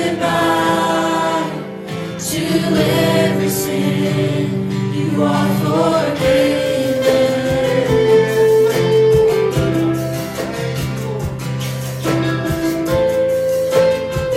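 A gospel worship song: singing with long held notes, over guitar accompaniment with a steady strum.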